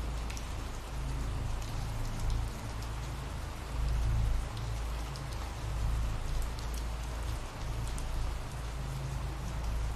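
Ambient rain recording: steady rainfall with scattered drop ticks over a low rumble.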